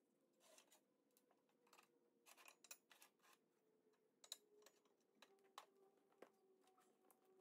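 Faint, scattered clicks and clinks of steel angle iron lengths being handled and laid against each other on a metal table.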